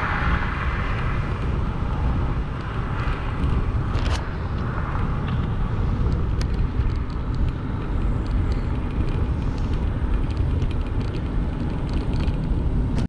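Heavy wind rumble on the microphone of a moving bicycle's camera, with the rushing tyre noise of a passing car loudest at the start and another swell of road noise about four to five seconds in.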